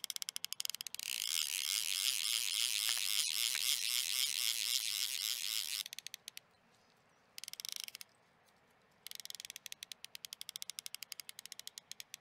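Rapid, even mechanical ticking, about ten sharp clicks a second. It thickens into a dense, louder clatter for several seconds, stops about six seconds in, returns in a short burst, then resumes as steady ticking.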